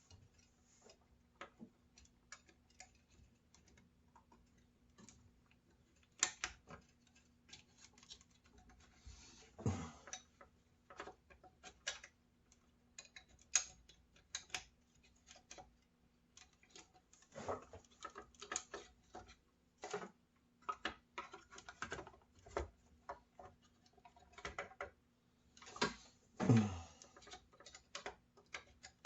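Irregular light clicks, taps and rustles of small plastic router parts and wiring being handled and fitted back into the housing, with a few louder scrapes about ten seconds in, around two-thirds of the way through and near the end.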